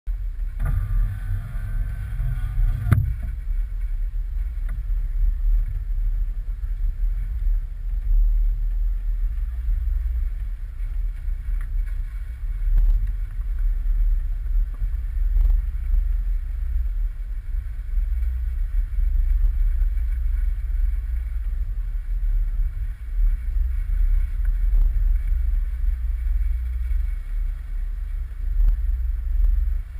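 Jeep Wrangler JK crawling along a rough dirt trail, heard through a hood-mounted camera housing: a steady low rumble of engine, drivetrain and wind buffeting, with a few sharp knocks as the vehicle jolts over the bumps.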